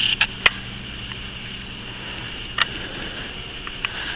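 A few sharp clicks and light taps, two close together at the start, one about two and a half seconds in and two faint ones near the end, over a steady low hum.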